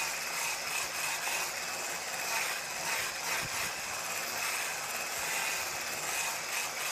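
Handheld immersion blender with a whisk attachment running steadily, a constant motor whine, whipping mashed potatoes in a stainless steel pot, with a few scattered clicks as the whisk moves through.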